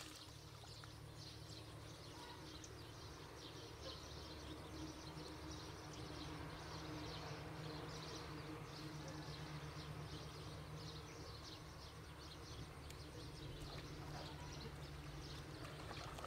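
Faint outdoor ambience: many small, irregular high-pitched chirps, bird-like, over a steady low rumble.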